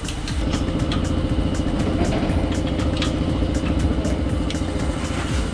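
A power ratchet running steadily as it turns out a brake caliper bracket bolt. It starts about half a second in.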